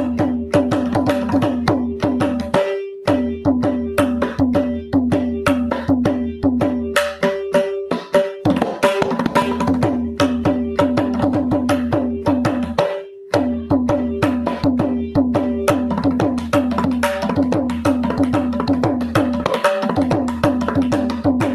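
Mridangam played in fast, continuous stroke patterns, the pitched strokes ringing over a steady drone tone. It breaks off for a moment twice, about three seconds in and again near the middle.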